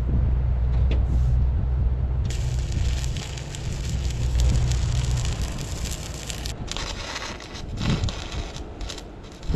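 Diesel engine running with a steady low hum under crackling noise; the engine sound drops away about five seconds in, leaving crackle and rustle.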